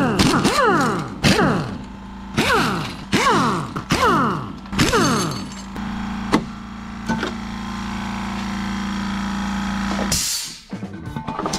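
Impact gun run in a series of short bursts, each a sharp rattle that winds down in pitch, as it spins bolts off a Mopar 440 big-block's intake manifold through a non-impact socket. After the bursts a steady machine hum carries on until it cuts off about ten seconds in.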